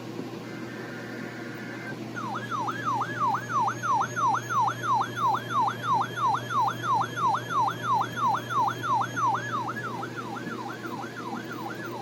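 Weather radio alert signalling for a weekly test: a short burst of two-tone digital data (a SAME header), then from about two seconds in a siren-like alarm tone sweeping up and down about three times a second, growing weaker over the last two seconds.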